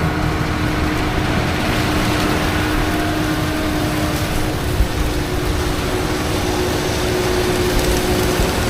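Heavy diesel farm machinery running steadily under load, a deep rumble with a steady whine over it and one brief knock about halfway through.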